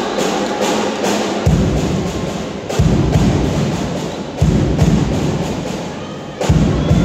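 Deep drum-like thumps every one and a half to two seconds, over steady crowd noise and many sharp claps, echoing in a large gym.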